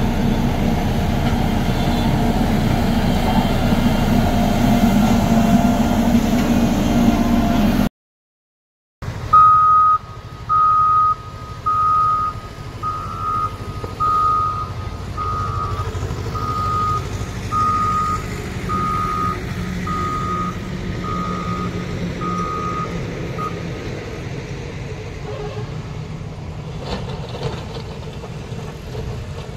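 Heavy earth-moving machines' diesel engines running steadily: a Volvo single-drum road roller and a CAT motor grader. After a second-long gap, the CAT motor grader's engine runs on while a reversing alarm beeps about a dozen times, roughly once a second, fading out partway through.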